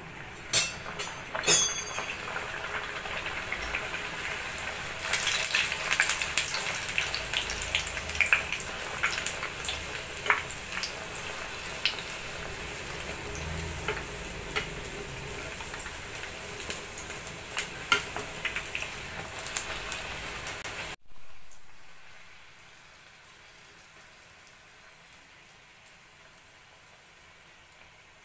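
Aloo poori deep-frying in hot oil in a kadai: the oil sizzles with dense crackling, and there are a few sharp clicks in the first two seconds. About two-thirds of the way in, the sound drops suddenly to a much quieter, steady sizzle.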